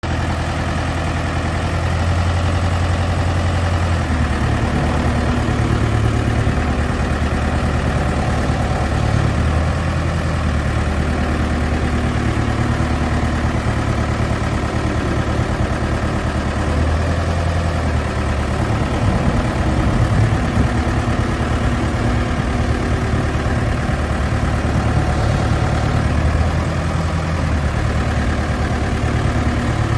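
Diesel engine of a Case 580SM Series 2 loader backhoe idling steadily, with small shifts in its low hum.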